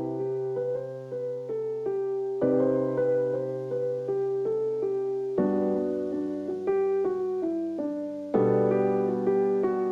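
Soft background piano music: a slow melody over chords that change about every three seconds.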